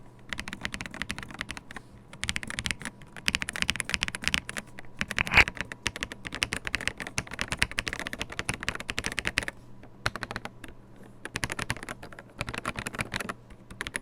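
Typing on an AJAZZ AK820 mechanical keyboard fitted with a new set of keycaps: fast runs of clacking keystrokes, with one louder stroke about five seconds in and a short lull about ten seconds in.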